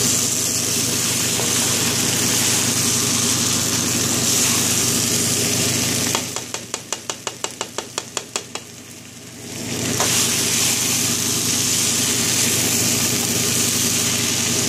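Vegetable fried rice sizzling and being stirred in a hot wok, a steady hiss over a low hum. About six seconds in, the sizzle drops away for a few seconds while a quick run of about a dozen clicks sounds, about five a second, then the sizzling comes back.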